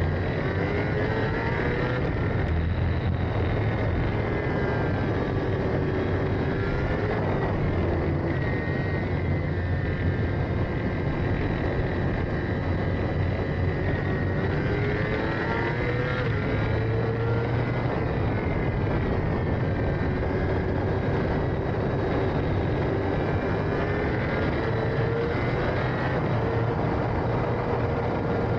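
Racing sidecar outfit's engine running hard through the whole stretch. Its revs climb and drop back sharply several times, as the outfit accelerates and then shifts or brakes.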